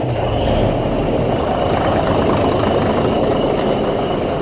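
An engine running steadily, a loud low rumble with no change in speed.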